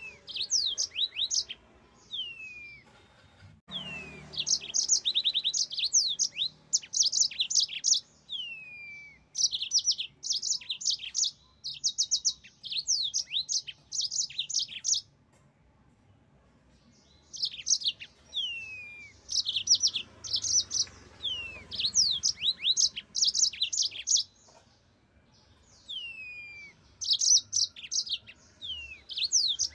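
Yellow-fronted canary (Mozambique canary) singing: bouts of rapid, high chirping trills mixed with downward-sliding whistled notes, broken twice by pauses of about two seconds.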